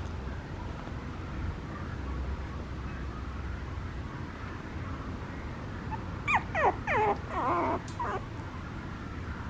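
Papillon puppy yipping: a quick run of short, high yelps that fall in pitch, with one longer whining call, about six seconds in.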